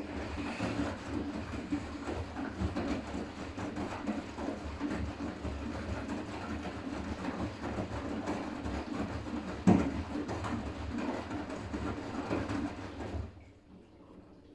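Siemens iQ500 front-loading washing machine turning its drum during the final rinse: a steady motor hum with laundry and water tumbling in a rhythmic clatter, one louder knock about ten seconds in, stopping abruptly near the end.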